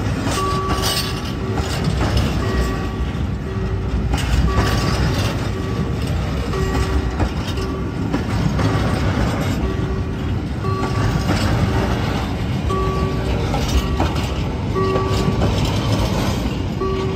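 Empty container flat wagons rolling slowly over a level crossing: a steady wheel-on-rail rumble with irregular clacks as the wheels pass the rail joints. Through it the crossing's warning signal sounds a repeating two-pitch tone about once a second.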